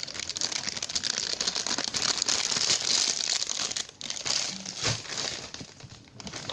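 Plastic crinkling and rustling, handled continuously, with a brief lull about four seconds in.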